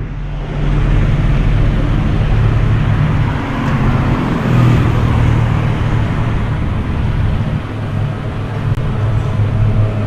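Street traffic: motor vehicle engines running with a steady low engine hum and general road noise.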